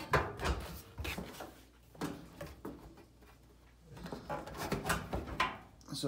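Irregular knocks, clicks and scrapes as a dryer's heat intake piece is handled and fitted back into place on the back of the drum. There is a cluster in the first second, a lull, then more knocks about four to five seconds in.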